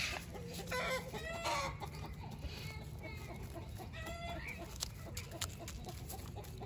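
Several chickens clucking as they peck at food on the ground, a steady run of short calls with some overlapping.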